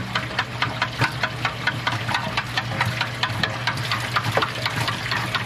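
A small electric motor humming steadily, with fast, uneven clicking over it.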